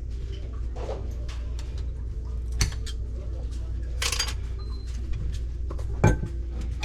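A few sharp clinks and knocks over a steady low hum.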